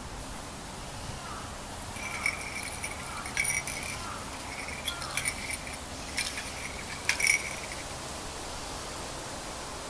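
A small bell jingling in a series of short shakes, each leaving a brief bright ring, from about two seconds in until about seven and a half seconds in.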